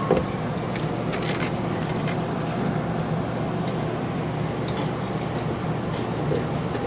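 Scattered metallic clinks and scrapes of a hand tool on the mount bolts and brackets as they are checked for tightness, over a steady low hum.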